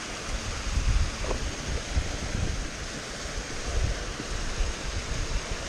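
Steady rush of a fell beck tumbling down a series of small rocky waterfalls, with wind buffeting the microphone in uneven low gusts.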